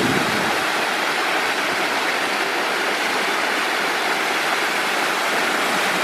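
Small waterfall pouring between boulders into a pool: a steady, even rush of falling water.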